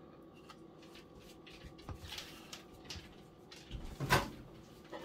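A few light knocks and taps from a spoon as sour cream is dolloped onto a salad, the loudest about four seconds in.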